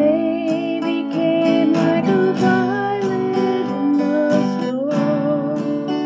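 A woman singing long, wavering held notes while steadily strumming an acoustic guitar.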